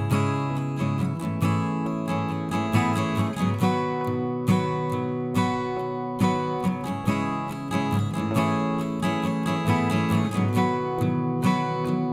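Background music: acoustic guitar strumming with plucked notes.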